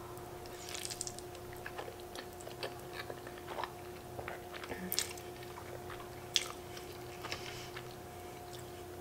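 Close-up mouth sounds of a person eating fettuccine in cream sauce: chewing with small wet smacks and clicks, and noodles being sucked in. A faint steady hum runs underneath.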